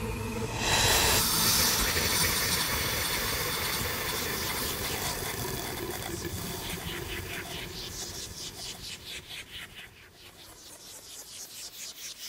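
Electronic music: a hiss of noise that swells about a second in and then slowly fades, breaking up into a fast, even flutter of pulses in the last few seconds.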